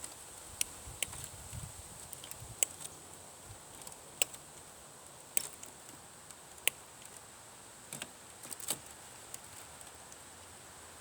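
Scattered sharp clicks and light knocks, about eight of them at irregular intervals, from tools and parts being handled while scrap electronics are taken apart. A faint steady high-pitched whine runs underneath.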